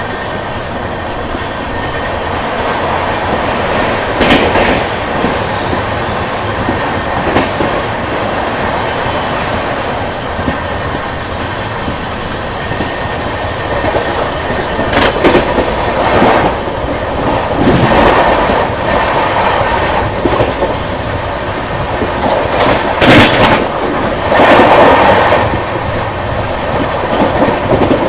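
Double-decker express train running at speed, heard at its open door: a steady rush of wind and wheel rumble, broken by sharp clatters of wheels over rail joints and points. The clatters come more often in the second half.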